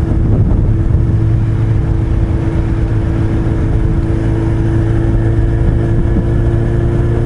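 Motorcycle engine running at a steady cruise of about 60 km/h, its note holding even, with wind and road noise rushing past the rider.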